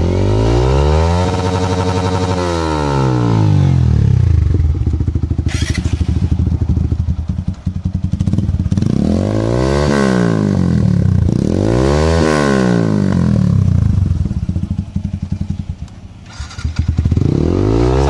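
Two single-cylinder motorcycles with aftermarket slip-on silencers, a TVS Apache RTR 180 with an SC Project can and a Yamaha R15 V3 with a Leo Vince can, idling and being revved for an exhaust-note comparison. A long rev is held for about two seconds at the start, sharp throttle blips rise and fall about ten and twelve seconds in, and another rev climbs near the end, with idling in between.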